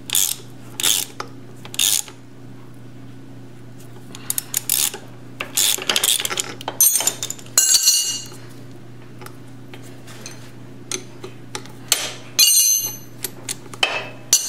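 Socket ratchet clicking and metal tools clinking while a chain rivet tool is tightened onto a motorcycle O-ring chain's master link to flare the link pins. Scattered clicks and clinks, with two bursts of rapid ratchet clicks about seven seconds and twelve seconds in.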